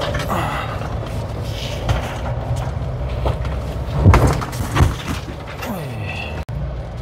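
Car cabin noise while driving over a rough, broken mountain road: steady engine and tyre rumble with a few thumps and knocks from the car jolting over the surface, the loudest about four seconds in.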